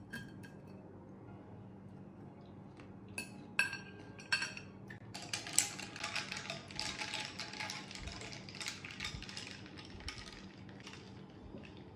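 Metal cutlery clinking on a ceramic plate a few times as a waffle is cut with a knife and fork, then a dense run of clattering clicks as a straw stirs a drink in a glass mug for several seconds.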